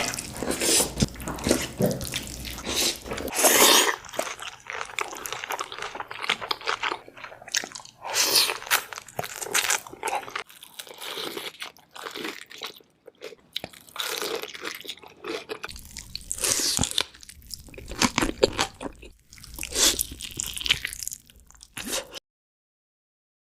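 Crunchy bites and chewing of food: many sharp, irregular crunches with short pauses between mouthfuls. The sound cuts out to silence about a second before the end.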